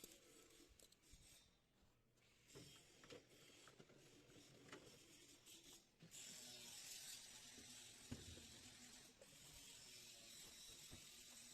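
Near silence: faint steady hiss with a few soft, scattered knocks and clicks.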